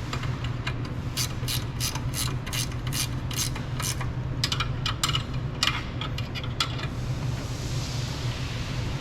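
Ratchet wrench clicking in two runs as brake caliper bracket bolts are run in and tightened by hand: a slow run of about three clicks a second, then a quicker run.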